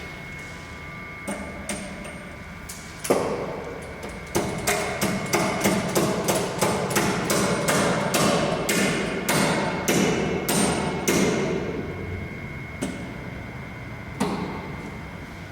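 Hammer blows on a motorcycle drive chain, struck to drive out the pre-fitted master link: a few light taps, then a run of sharp, ringing strikes about two a second for some eight seconds, then two last single knocks.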